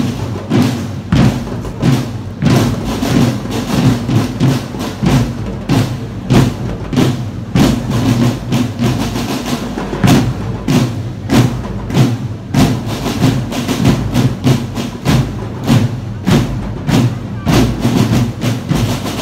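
School marching drum band playing: drums strike a steady beat about twice a second under the band's tune, starting suddenly at the outset.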